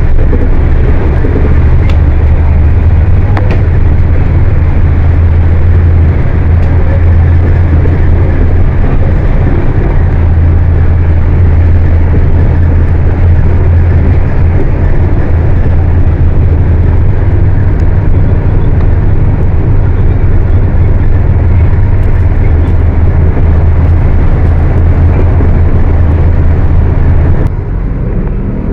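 Volkswagen 17-230 OD Euro V bus's diesel engine running loud and steady with a heavy low drone, dropping off near the end.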